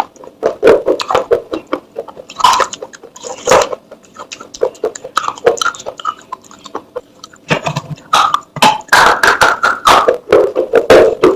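Dry clay pottery being crushed and crumbled: a dense run of crisp cracks, crunches and scrapes, with a short hollow ring near the end.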